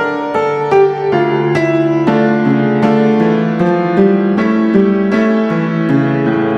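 Background piano music: a melody of evenly struck notes, each ringing and fading, about two to three notes a second.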